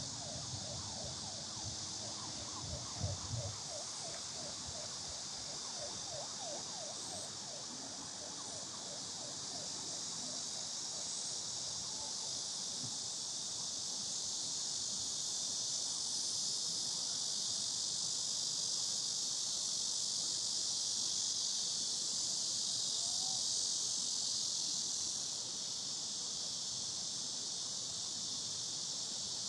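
Summer cicada chorus: a dense, steady high-pitched buzz that swells somewhat in the middle and eases near the end. For the first several seconds a lower, rapidly pulsing call runs beneath it.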